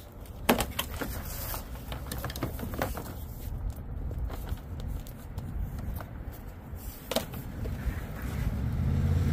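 Scattered knocks and light scrapes as a flexible solar panel is handled and laid onto a pickup's hard tonneau cover. A steady low rumble runs underneath and swells near the end.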